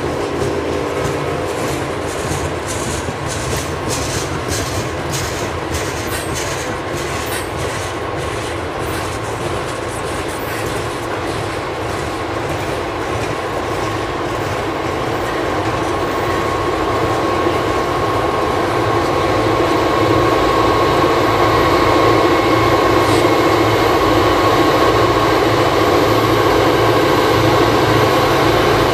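Loaded coal hopper cars rolling by, their wheels clicking over rail joints. Then the rear pusher helpers, Norfolk Southern SD40E diesel locomotives, come up loud, working hard up the grade and screaming with a steady high whine.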